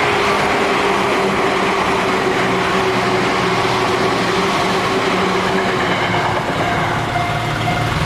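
Seibu Shinjuku Line electric commuter train passing over a level crossing: a loud, steady rumble of wheels on rail with a humming tone running through it.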